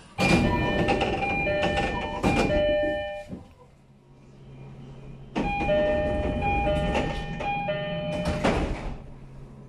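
Passenger doors of a JR East E531-series train sliding open to its electronic door chime, then after a pause sliding shut to the chime again, each movement ending in a knock as the doors reach their stops. A low steady hum from the stopped train follows the closing.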